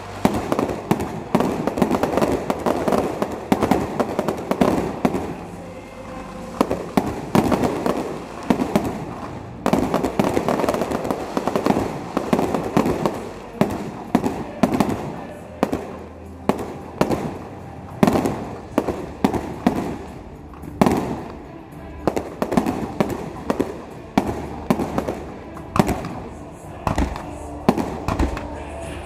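Fireworks display: a steady run of aerial shell bursts, many sharp bangs with dense crackling between them, with music playing underneath.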